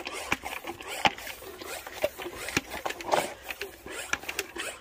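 Irish Wolfhound puppy lapping at liquid spilled on the ground: a run of irregular short clicks and slurps, about two a second.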